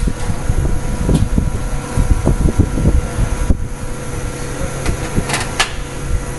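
Steady machine hum with several whining tones over a low rumble, broken by irregular low knocks and handling bumps; a few sharp clicks about five seconds in.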